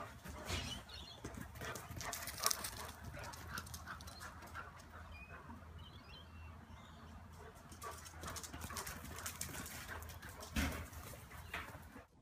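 Two dogs playing rough together, with scuffling and short dog noises and a few sharp knocks, the loudest about two and a half seconds in and again near eleven seconds.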